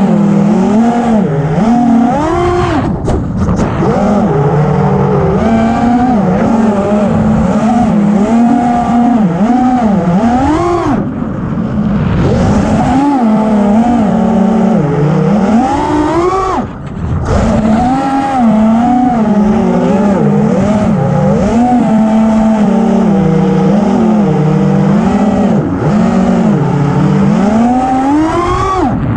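FPV racing quadcopter's motors and propellers whining as heard from the onboard camera, the pitch rising and falling constantly with the throttle. There are a few sharp rising sweeps, and about 17 seconds in one cuts to a brief dip.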